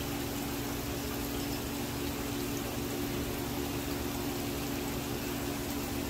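Water trickling and splashing down a tiered stone garden fountain, with a steady low hum that sounds like the fountain's pump.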